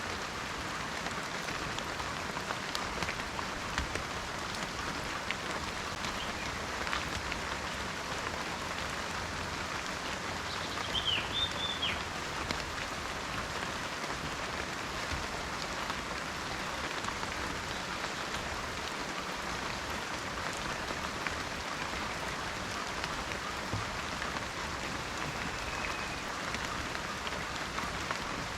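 Steady rain falling in a forest, a continuous patter with many separate drops. About a third of the way through, a brief high chirping call sounds twice.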